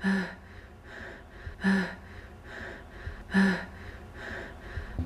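A person panting hard from climbing stairs: a loud voiced gasp about every second and a half to two seconds, with quieter breaths in between.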